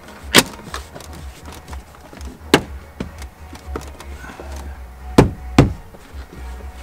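Plastic B-pillar trim panel of an Audi A4 being pushed and knocked into its mounting clips by hand: four sharp knocks, one about half a second in, one at about two and a half seconds, and two close together near the end.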